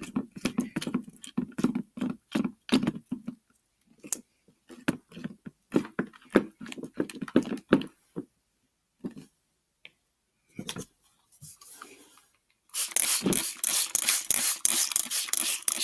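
Sticky homemade slime squelching and clicking as it is kneaded by hand in a plastic bowl. About thirteen seconds in, a trigger spray bottle of borax-in-water activator is pumped rapidly onto the slime, hissing about three times a second; these sprays are the loudest sound.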